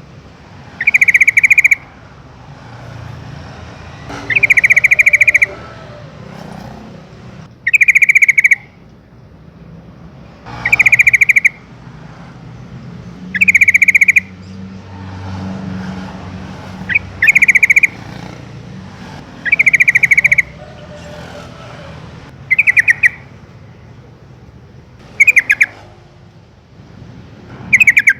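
Yellow-vented bulbul giving its loud, rapid chattering call, about a second long, repeated ten times at roughly three-second intervals, over a low steady background rumble.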